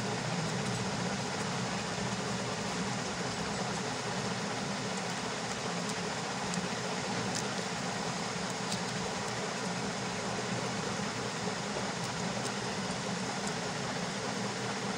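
Steady background hum and hiss, even throughout, with a few faint ticks.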